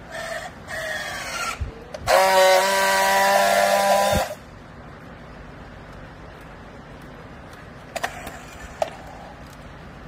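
Battery-powered handheld strapping tool on plastic strapping. First comes a motor whine rising in pitch in two short runs as it tensions the strap. Then a loud, steady buzz of about two seconds as it friction-welds the seal, ending abruptly in a sharp click. Two light clicks follow near the end.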